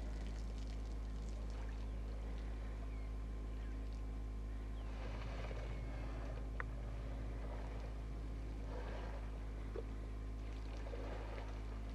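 Steady low rumble of outdoor ambience with soft rustling now and then, and two faint sharp clicks, one a little past halfway and one near the end.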